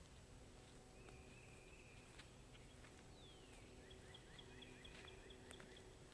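Near silence with faint songbirds singing: a short trill, then a falling whistle, then a quick run of repeated high notes.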